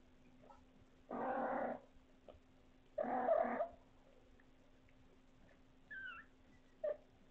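A cat gives two short, low growling calls about two seconds apart, each under a second long; near the end comes a faint high chirp and a brief sound.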